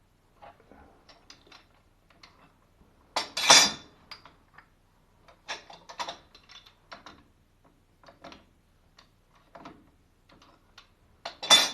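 Metal plumbing fittings and tools being handled: scattered clicks and ticks, with two loud clanks, one about three and a half seconds in and one near the end.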